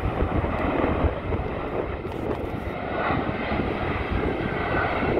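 Boeing 747 freighter's four jet engines passing low overhead on landing approach, gear down: a steady, loud roar, with a whine coming up in the second half.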